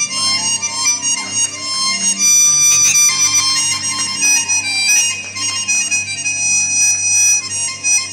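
Belly dance music with a sustained reed-like wind melody over steady low notes.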